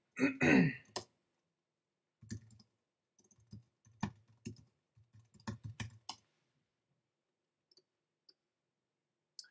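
Computer mouse and keyboard clicking: about ten short, sharp clicks spread over some four seconds, starting about two seconds in.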